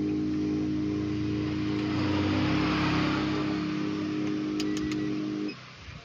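A steady low hum with a rushing swell through the middle, cutting off suddenly about five and a half seconds in.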